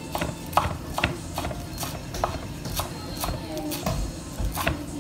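Chef's knife chopping cilantro on a wooden cutting board: an uneven run of sharp knocks of the blade hitting the board, about two a second.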